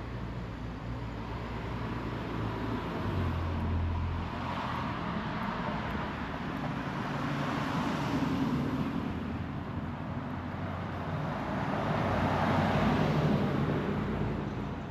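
Road traffic: cars passing one after another, each swelling and fading over a few seconds, with a brief low engine hum about three seconds in.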